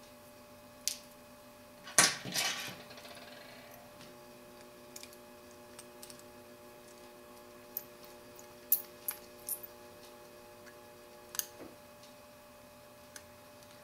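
Small tools and tiny screws clicking and tapping as the screws are taken out of a BlackBerry Bold 9700 phone's housing with a small screwdriver, with one louder rattling clatter about two seconds in.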